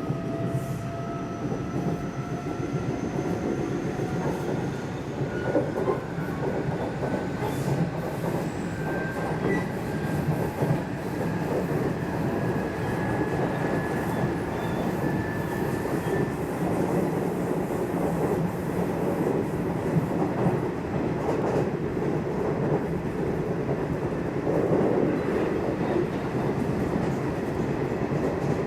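Nishitetsu electric commuter train running, heard from inside the car: a motor whine rises slowly in pitch as it gathers speed and fades out about halfway through, over steady wheel and rail noise with occasional clicks of the wheels over rail joints.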